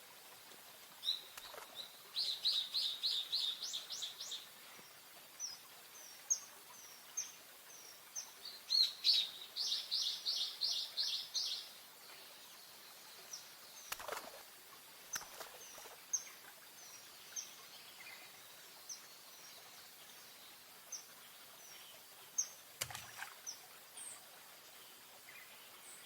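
Bird calling with high-pitched notes: two quick rattling runs of notes, then short thin chirps about once a second. Two sharp clicks stand out partway through.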